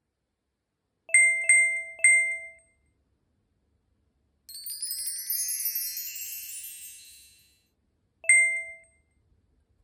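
Added cartoon sound effects: three quick bell-like dings about a second in, a shimmering cascade of high chime tones lasting about three seconds from the middle, then one more ding near the end.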